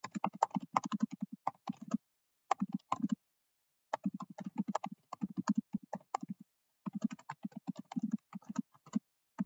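Typing on a computer keyboard: quick runs of key clicks broken by a few short pauses.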